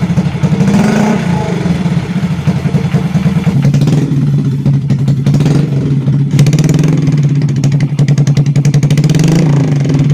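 Honda Revo Fit's single-cylinder four-stroke engine running at idle with light blips of the throttle, heard through its exhaust. First it runs through the stock-shaped silencer, then, after a change in the note about three and a half seconds in, through an aftermarket SC Project-replica racing silencer.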